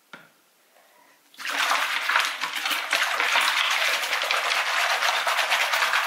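Hands sloshing and scrubbing plastic combs and hairbrushes in a sink of soapy water: a dense, crackly splashing that starts suddenly about a second and a half in and keeps going, after a small click at the start.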